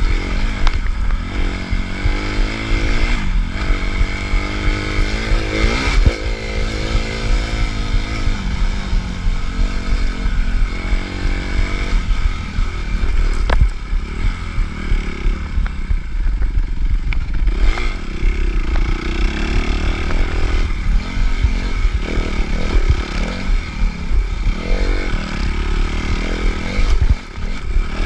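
Suzuki RM-Z250 four-stroke single-cylinder dirt-bike engine under riding load, its pitch repeatedly rising and falling as the throttle is opened and shut.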